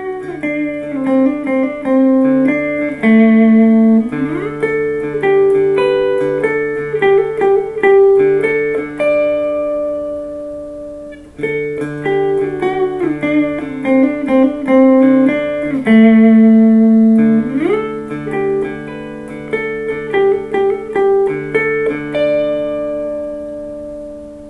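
Semi-hollow electric guitar (Epiphone Sheraton II) played clean through a Fender Blues Junior valve amp. A picked phrase of ringing notes and chords is played twice over, and the last notes ring out and fade near the end.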